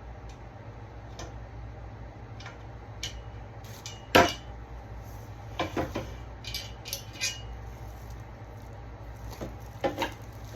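Scattered knocks and clinks of table parts and hardware being handled during furniture assembly, with one sharp knock about four seconds in and a few clustered clicks after it.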